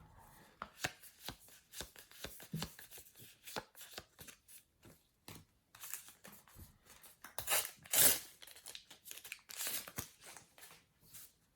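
Sticker packets and paper stickers being handled: a run of small crinkles, taps and flicks, with louder rustling about seven and a half to eight seconds in and again near ten seconds.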